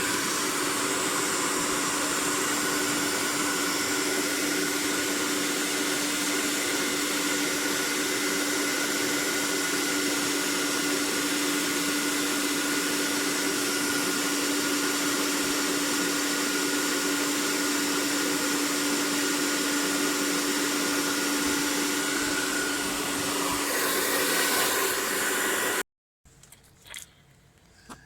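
Handheld hair dryer blowing steadily, a constant rushing hiss with a fixed whine from its motor and fan. It stops suddenly near the end.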